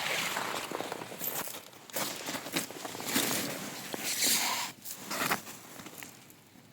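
Beach pebbles and gravel crunching and rattling in several surges, fading out near the end.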